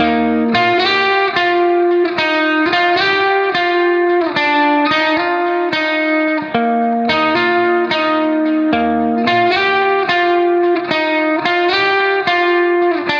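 Background music: a plucked guitar plays a steady, repeating run of notes, several a second.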